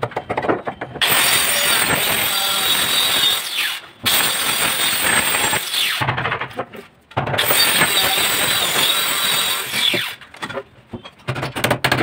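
A power tool runs in three spells of two to three seconds each, switched on and off sharply, with a squealing edge and a pitch that sags near the end of a spell. In the gaps come short knocks and scrapes of a hand chisel working the lock slot in a wooden door edge.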